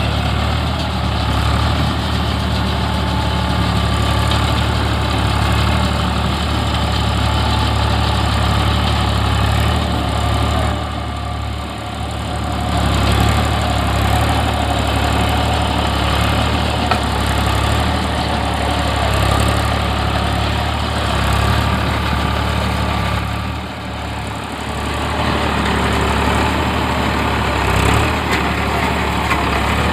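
Eicher 557 tractor's diesel engine running steadily, its level dipping briefly twice.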